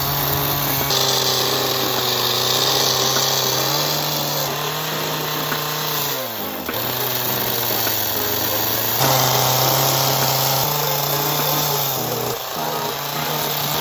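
Chainsaw running at high revs while carving pecan wood. The engine pitch sags and recovers about six seconds in and again near the end as the throttle eases off.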